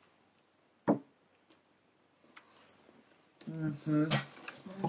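Quiet eating with a single sharp click about a second in and a few faint clicks. Then, in the last second and a half, a woman hums a wavering "mmm" through a full mouth.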